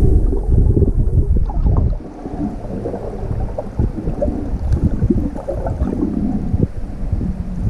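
Underwater sound picked up through a camera housing: a low rumble of water moving past, with bubbling and scattered crackles. The rumble eases about two seconds in.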